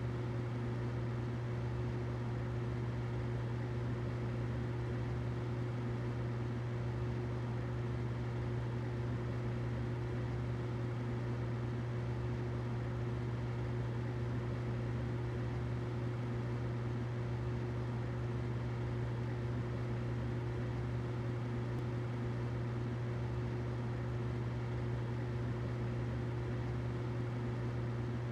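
Humidifier running: a steady low hum with a thin higher tone over it and an even hiss, unchanging throughout.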